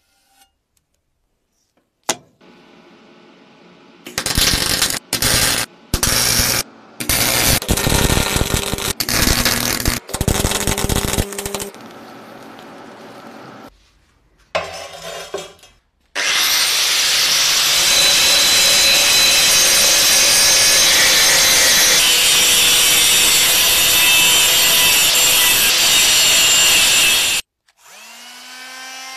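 Steel axe head rubbed back and forth in separate strokes on an abrasive flat surface. This is followed by about ten seconds of a power tool running steadily against the metal, which cuts off sharply. Near the end a cordless rotary tool with a sanding drum spins up with a rising whine.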